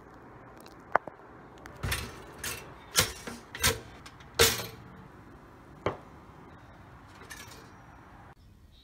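Kitchen handling sounds at a metal toaster: a run of sharp clicks and knocks, about seven over five seconds, as a poppy-seed roll is split by hand and dropped into the toaster's slots.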